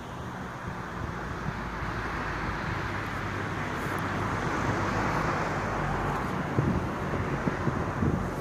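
A car passing by on the road: its tyre and engine noise swells to a peak about five seconds in, then fades.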